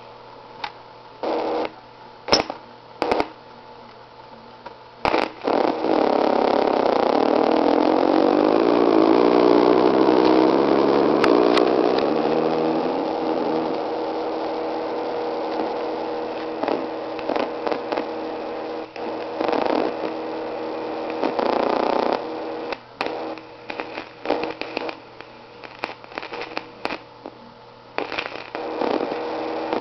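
Circuit-bent circuit board driving a small speaker, making electronic noise over a steady hum. It starts with short crackling bursts, then a long wavering drone with gliding, sweeping pitches from about five seconds in, which breaks up into choppy stop-start bursts after about twenty seconds.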